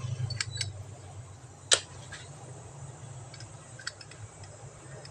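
A few sharp metallic clicks and taps from handling a Zippo-style lighter, two close together about half a second in and the loudest about 1.7 s in, over a steady low hum.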